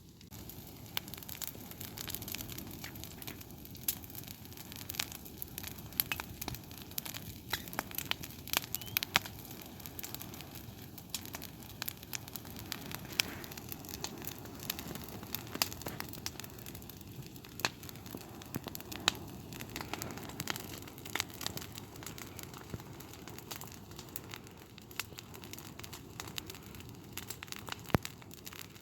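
Campfire burning down, crackling with irregular sharp pops over a steady low hiss; one of the loudest pops comes near the end.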